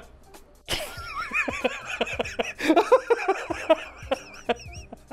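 A man laughing hard in fits. The laughter bursts in a moment after the start and breaks into high, wavering squeals.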